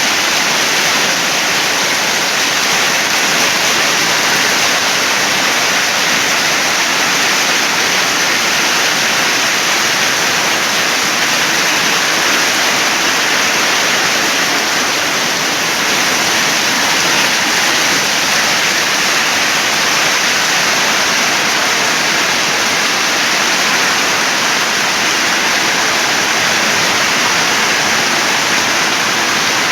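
Heavy rain pouring down in a storm: a steady, loud, unbroken hiss with no letup.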